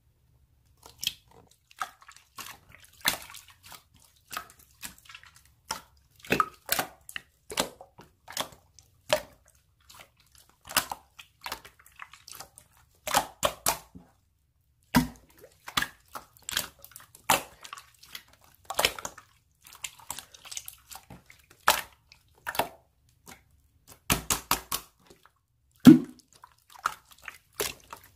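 Slime being squeezed and poked by hand, making irregular wet clicks and pops, sometimes several in quick succession.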